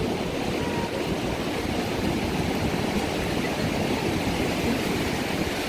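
Steady rushing noise of small waves washing in at the water's edge, with wind buffeting the microphone.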